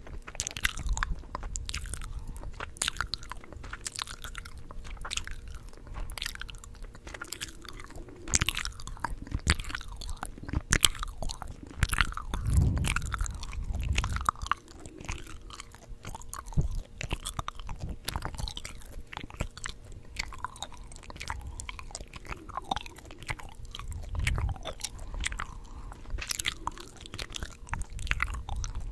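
Gum chewed close to the microphone: irregular wet smacking and clicking mouth sounds, with a couple of low thuds.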